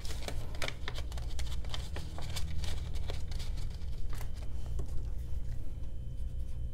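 Paper banknotes rustling and flicking in the hands and being slid into a clear plastic binder sleeve, in quick crackling strokes that thin out after about five seconds, over a steady low hum.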